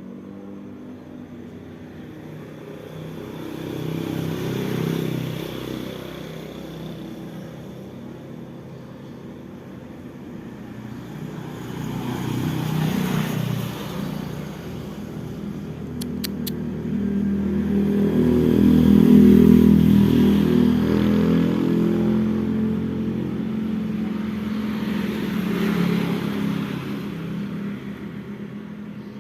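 Road traffic: motor vehicles pass one after another, each engine rising and fading away, the loudest pass about two-thirds of the way through.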